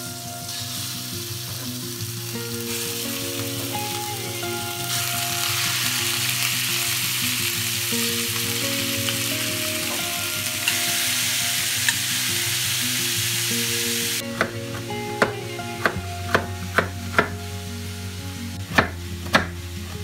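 Pieces of meat sizzling as they fry in hot oil in a cast iron skillet, the sizzle growing louder about five seconds in as the pan fills. It cuts off suddenly near two-thirds of the way through, and a knife chopping carrots on a wooden board takes over with a run of sharp, uneven knocks.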